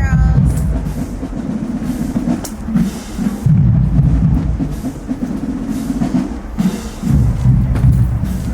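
Marching band drum line playing a cadence: deep bass drums with snare and cymbal hits.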